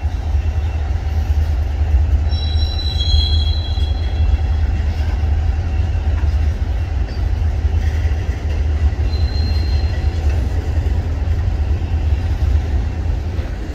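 Canadian National freight train, led by diesel locomotives, rolling slowly past with a steady low drone of engines and wheels on rail. Thin high wheel squeal rings out for about a second and a half a couple of seconds in, and briefly again near the end.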